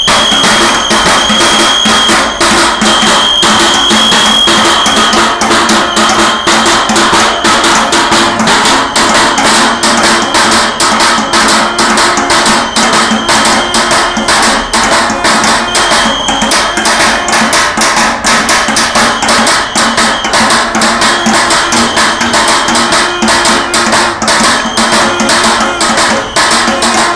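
Fast, loud drumming with sticks on barrels, an unbroken stream of hard strikes. A high steady tone sounds on and off over it.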